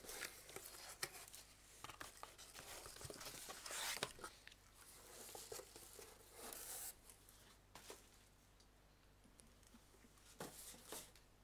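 Faint, intermittent rustling, crinkling and small knocks of someone rummaging through a suitcase and handling an item. The sounds are busiest in the first half and thin out after about 7 seconds.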